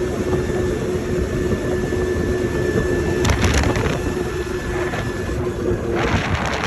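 A steady engine-like hum over low rumbling noise. The hum stops near the end, and there are short bursts of hiss about three seconds in and again at the end.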